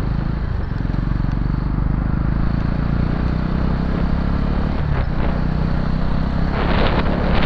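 Motorcycle engine running steadily while riding, with road noise, growing louder and rougher near the end.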